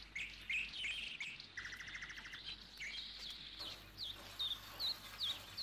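Birds chirping: a string of short, quick chirps repeated throughout, with a brief buzzy trill about a second and a half in.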